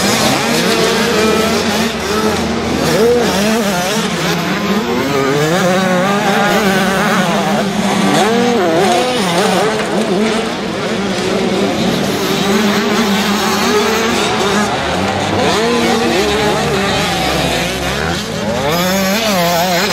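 Several motocross bikes racing on a dirt track, their engines revving up and down and overlapping as they pass through the corners.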